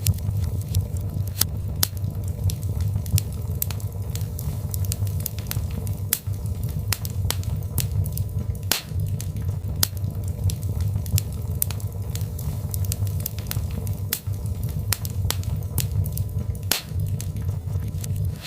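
Birch log fire burning in a fireplace: a steady low rumble of flames with irregular sharp crackles and pops, a couple of louder pops about halfway through and near the end.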